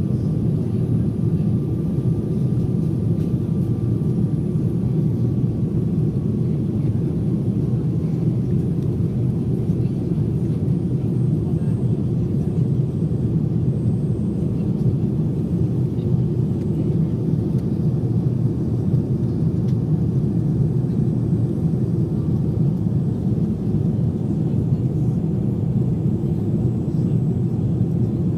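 Airliner cabin noise in flight: a steady, even low rumble of engines and airflow, with a faint thin whine in the first few seconds.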